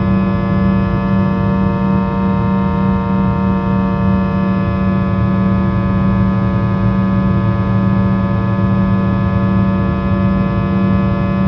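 Inside the cabin of a Fokker 100 in flight, the rear-mounted Rolls-Royce Tay 650-15 turbofans drone steadily and loudly: a strong low hum with many steady higher tones over a rushing hiss.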